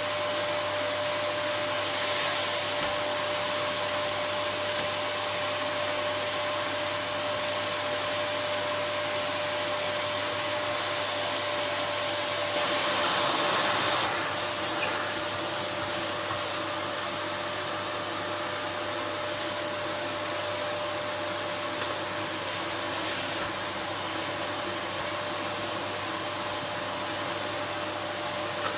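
Gtech CY01 1600-watt bagged cylinder vacuum cleaner running steadily, a rushing noise with a steady motor whine. About thirteen seconds in there is a brief louder surge, after which the whine is a little softer.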